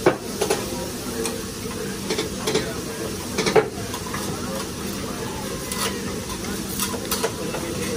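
Food sizzling on a hibachi teppanyaki griddle while the chef's metal spatulas clack and scrape against the iron. The clacks come irregularly, the sharpest right at the start and about three and a half seconds in.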